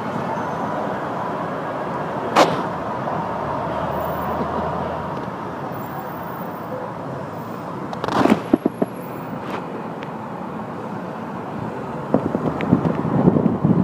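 Steady road and traffic noise from a car driving along a city street. There is a sharp knock about two seconds in and a short cluster of knocks around eight seconds in, and the noise grows louder and rougher near the end.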